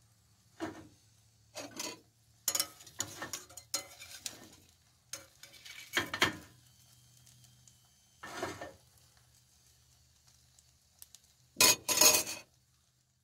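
A metal turner scraping and clinking against a stainless steel frying pan as a cooking omelet is loosened, in a string of short scrapes over a faint sizzle. Near the end comes the loudest clatter, as the turner is set down in a ceramic bowl.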